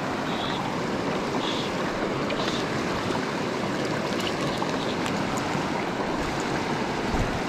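Shallow, clear river flowing over a stony bed close by: a steady noise of running water.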